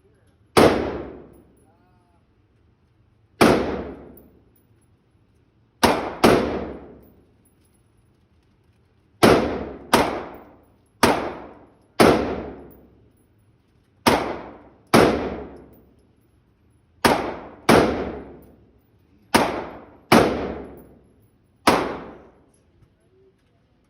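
Gunshots fired one at a time at an uneven pace, about sixteen in all, sometimes two in quick succession. Each sharp report is followed by a ringing decay of about a second.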